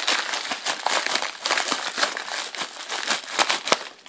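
Packaging crinkling and rustling in quick, irregular crackles as a smartphone box is unwrapped by hand.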